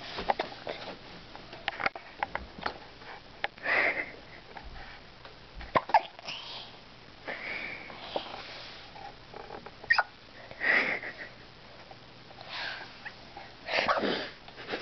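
Hiccups: short, sharp clicks every few seconds, with breathy sniffs and huffs in between.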